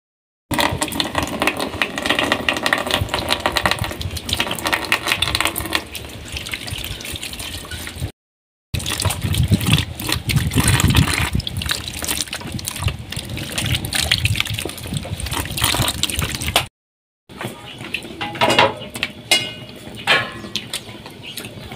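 Water running from a tap into a plastic bucket, splashing as hands wash in it, broken twice by brief silences. Near the end it gives way to a quieter stretch with scattered clicks.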